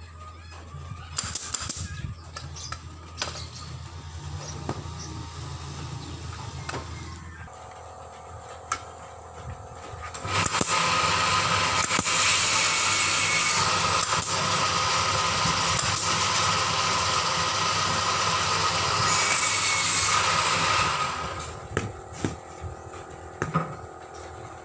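A machine starts about ten seconds in and runs loudly and steadily for about ten seconds, with a few steady tones in the noise, then stops. Before it there is a low steady hum with scattered clicks and knocks.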